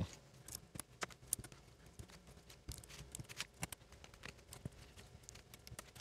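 Irregular small plastic clicks and taps as keycaps are picked from a tray and pressed onto the switch stems of a mechanical keyboard.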